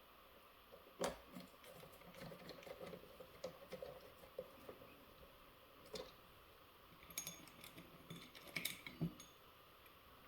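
Faint clicks and light taps of small parts and screws being handled during hand assembly of an RC loader's track assembly. There is a sharp click about a second in and a run of quick clicks near the end.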